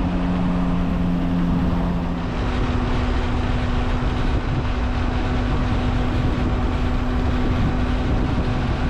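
Yamaha Tracer 9 GT+ motorcycle cruising at highway speed: steady wind rush over the microphone with an even engine hum underneath. A second, lower hum drops away about two seconds in.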